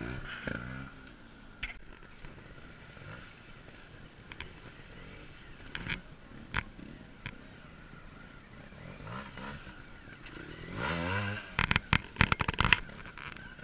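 Trials motorcycle engine revving in short blips, a longer rev rising about eleven seconds in. A quick run of sharp knocks follows near the end and is the loudest sound. A few scattered single clicks come in the quieter stretch between.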